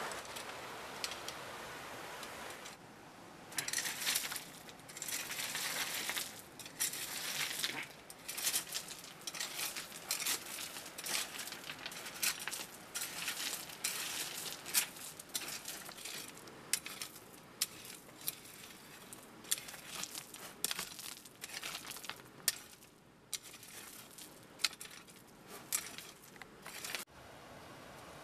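A hand tool striking and scraping into a bed of river gravel: irregular sharp crunches and clinks of pebbles knocking together, sometimes several in a second.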